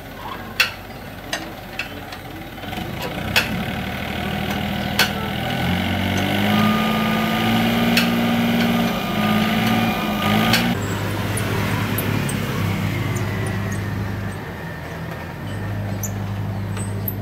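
A motor vehicle's engine running steadily out of sight, its note going up about six seconds in and dropping back about eleven seconds in, with scattered sharp metallic clicks from hand tools worked at a motorbike's rear wheel hub.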